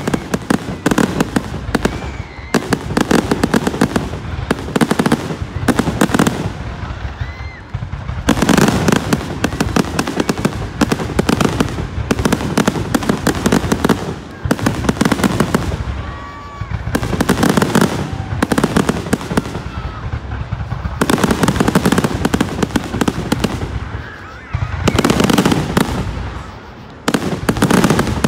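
Aerial fireworks shells bursting in a rapid, continuous barrage with dense crackling. The bangs come in loud waves separated by brief lulls.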